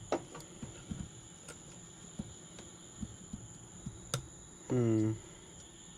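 Scattered light clicks and taps of hand work at a spade bit in a freshly drilled hole, trying to free a loose aluminum disc spinning on the bit. A short hummed 'mm' comes about five seconds in, the loudest sound, over a faint steady high whine.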